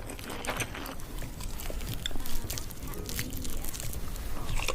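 Close-miked chewing and biting: a run of short, crunchy clicks and crackles from food being eaten.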